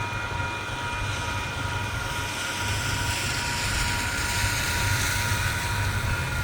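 Train going by with a low rumble and a hiss that grows louder about halfway through, over several steady high ringing tones.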